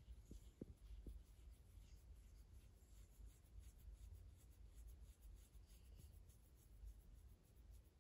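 Near silence with faint scratching and rubbing of fingers in a French Bulldog's chin fur, over a low rumble of handling noise.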